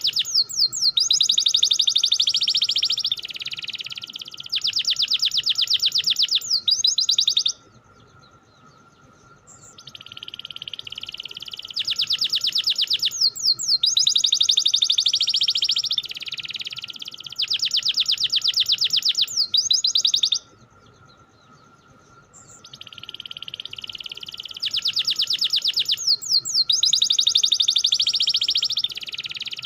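Domestic canary singing long runs of rapid rolling trills, in phrases several seconds long broken by pauses of two to three seconds. The same song sequence comes round again about every 13 seconds, over a faint steady tone.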